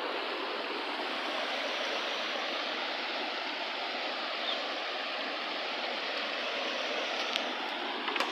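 Steady, even rushing noise with no change in level, with a couple of faint clicks near the end.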